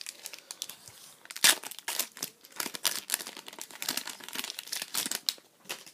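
Foil wrapper of a Pokémon trading card booster pack being torn open and crinkled by hand: a run of irregular crackles, loudest about one and a half seconds in.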